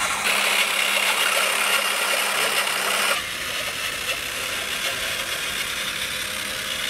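Handheld electric drill with a long mixing paddle running steadily, churning milkshake in a large metal pot. Its sound changes abruptly and drops a little about three seconds in.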